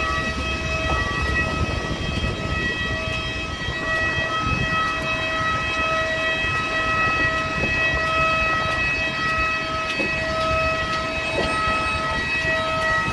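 Steady high whine of a parked Airbus A320's auxiliary power unit, several constant tones held over a low rumble.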